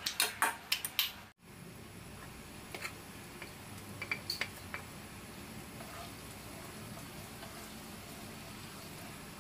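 A metal spoon clinks against a stainless steel bowl as it turns marinated pork ribs. It cuts off about a second and a half in, and chopped garlic then fries in oil in a pan with a soft, steady sizzle. A few light taps come around four seconds in as the garlic is scraped into the pan.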